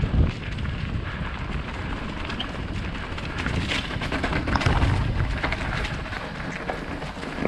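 Wind buffeting the microphone of a mountain bike rider on a dirt trail, over tyre noise and irregular rattling clicks from the bike. The rumble swells just after the start and again about four to five seconds in.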